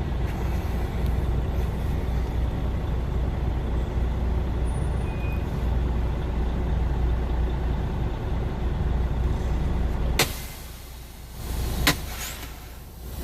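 Steady low rumble of a 4x4 truck driving, heard from inside the cab. About ten seconds in the rumble drops away suddenly, and a sharp click follows a couple of seconds later.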